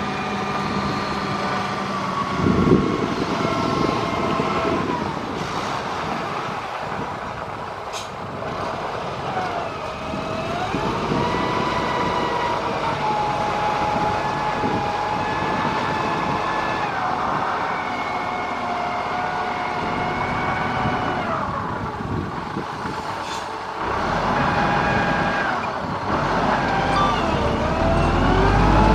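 Motor grader's diesel engine running, its pitch holding steady for stretches and then gliding up or down as the engine speeds up and slows, rising about ten seconds in and again near the end.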